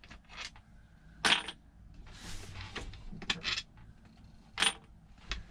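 Light metallic clinks and clicks of small shifter parts and tools being handled. The sharpest clink comes about a second in and another near the end, with a brief rustle between them.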